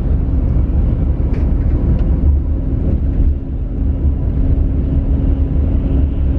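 Steady low rumble of a coach's engine and tyres on the motorway, heard from inside the passenger cabin, with a faint steady hum over it.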